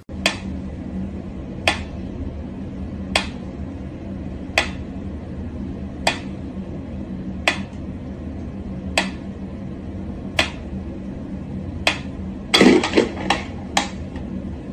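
Mechanical pyramid metronome ticking slowly, one sharp click about every second and a half, over a steady low hum. Near the end a quick burst of louder clattering knocks breaks the beat.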